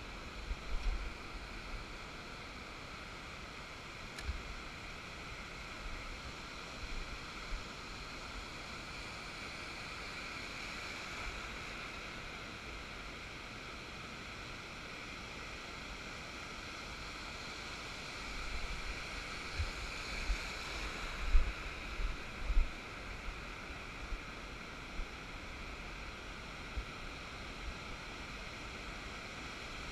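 Small surf breaking and washing through the shallows, a steady hiss of water. A cluster of short low bumps comes about two-thirds of the way through.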